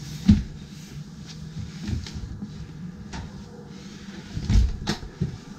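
Scattered knocks and bumps of someone moving about a narrowboat's galley: footsteps on the floor and items set down on the wooden worktop. The sharpest knock comes just after the start and two more come near the end, over a faint low hum.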